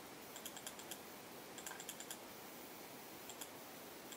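Computer keyboard keystrokes in three short clusters, faint over a steady hiss.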